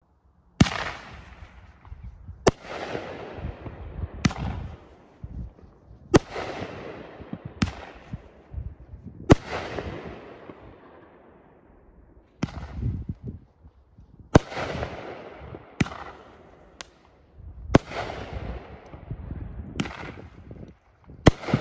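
Pyrology No. 2 consumer firework cake by OMG Fireworks firing a volley of aerial shots. About a dozen sharp bangs come one every 1.5 to 2 seconds, each followed by a fading tail of noise.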